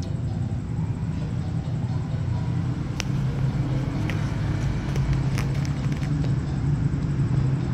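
Steady low rumble of a mother cat purring while her kittens nurse, with a few faint clicks near the middle.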